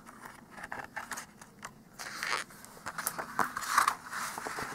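Paper page of a picture book being turned by hand: soft rustling with small clicks and scrapes, louder in the second half.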